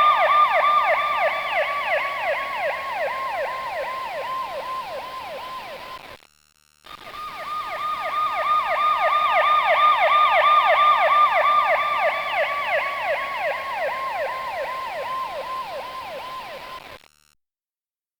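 Emergency vehicle siren in a fast yelp, rapid rising-and-falling sweeps. It fades and drops slightly in pitch, cuts out briefly about six seconds in, then comes back, swells and fades again, stopping about a second before the end.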